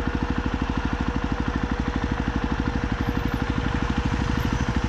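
Jawa motorcycle's single-cylinder engine idling at a standstill, an even, rapid putter that holds steady throughout.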